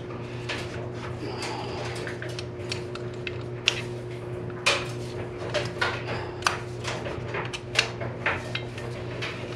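Allen wrench working the two Allen-head bolts out of an outboard lower unit's prop bearing cage: irregular small metal clicks and clinks of tool on metal, a few sharper ones in the middle, over a steady low hum.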